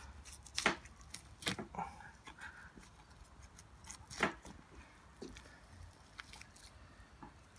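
Boning knife working along the feather bones of a beef short loin: scattered sharp clicks and scrapes of the blade on bone as the meat is cut away, the loudest about two-thirds of a second and four seconds in.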